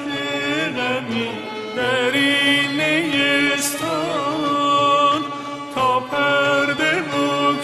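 Background music: a voice singing long, wavering, ornamented lines over a steady low accompaniment.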